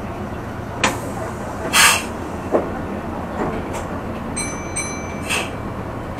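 Meitetsu electric express train running, heard from inside the front car: a steady low rumble of wheels and motors with scattered knocks as the wheels cross rail joints. There is a short hiss about two seconds in, and a brief high tone in two short pieces about halfway through.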